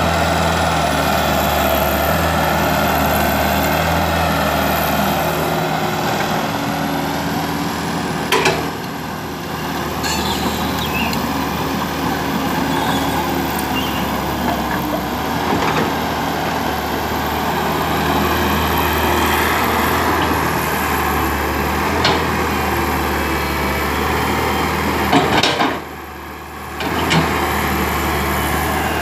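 Komatsu PC120 excavator's diesel engine running steadily under working load as the arm and bucket move soil. There are a few sharp knocks, and the engine sound drops away briefly twice, about nine seconds in and again near the end.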